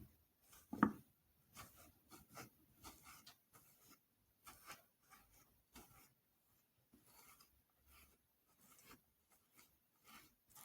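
Faint kitchen handling sounds: soft rubbing and scraping with light taps, and one louder knock about a second in.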